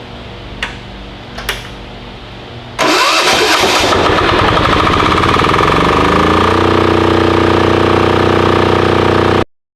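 Titan 7500 diesel generator engine starting. After two clicks, it catches with a loud burst just under three seconds in, spins up and settles into steady running, then cuts off abruptly.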